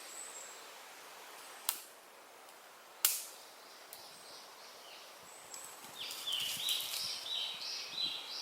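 Two sharp snaps about a second and a half apart, then a bird calling in a quick series of short repeated chirps, about two a second.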